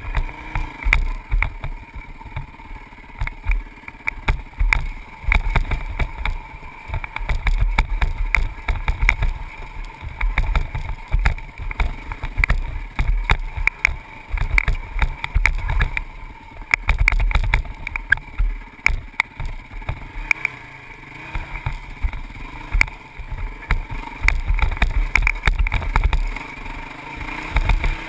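Wind buffeting the microphone while a Honda CRF450X dirt bike is ridden fast over a rough dirt trail, its single-cylinder four-stroke engine running underneath the gusts. Irregular knocks and rattles come from the bike hitting bumps.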